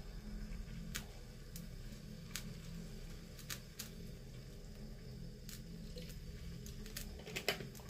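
Vinegar poured from a plastic bottle into a pot over fish and vegetables, a faint trickle over a steady low hum, with a few light clicks scattered through it.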